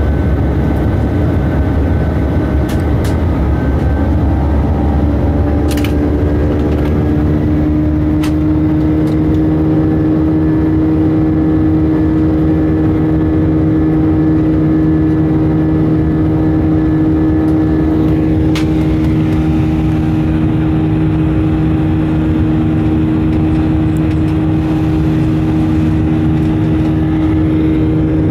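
Airbus A319 jet engines heard from inside the passenger cabin during the climb: a loud, steady roar with a hum. Over the first several seconds the hum falls in pitch, then it holds steady, typical of the engines easing back from takeoff to climb thrust.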